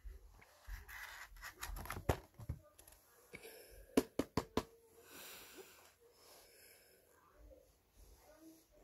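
Cardboard DVD box set being handled and opened by hand: soft rustling and scraping of the card packaging, with a quick run of sharp clicks and taps about four seconds in.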